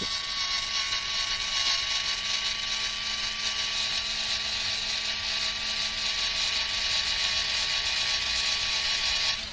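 Small cordless electric screwdriver's motor and gearbox running steadily at constant pitch, a high whine, with the bit working into hard plastic. It cuts off near the end.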